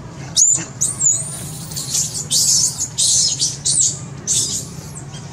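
Baby macaque crying in distress: a rapid series of high-pitched squeals and harsher screeches, some sliding down in pitch, starting about half a second in and dying away near the end.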